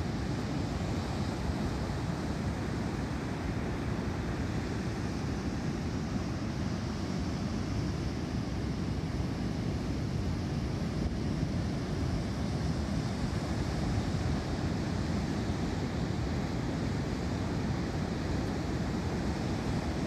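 Ocean surf breaking and washing up a beach, a steady unbroken rush of waves.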